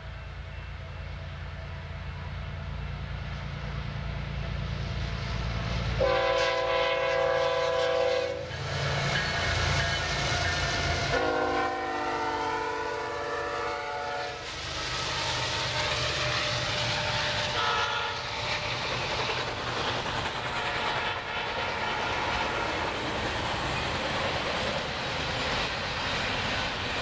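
BNSF diesel locomotives leading a double-stack container train rumble closer, then sound the air horn in two long blasts and a short one as they pass, the pitch of the second blast dropping as the locomotive goes by. After that the stack cars roll past with a steady rush and clatter of wheels on the rails.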